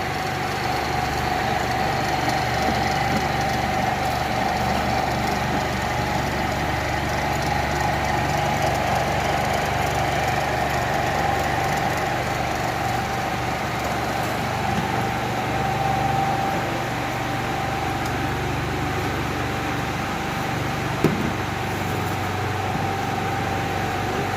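Block ice machine running: a steady mechanical hum with a constant whine over it, and one short sharp knock near the end.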